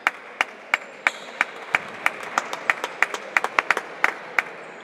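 Spectators clapping their hands in rhythm, about three sharp claps a second at first, growing denser and less even past the middle as more hands join, then stopping shortly before the end.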